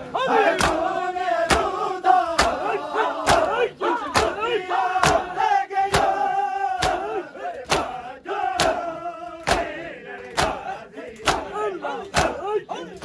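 A crowd of men performing matam, slapping their bare chests in unison about twice a second, with many voices chanting and shouting over the beat.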